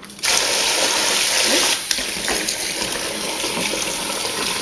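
A stream of hot water pouring into a plastic bucket of soapy homemade laundry detergent mix, filling it up. It starts suddenly just after the beginning and runs steadily, easing a little after about two seconds.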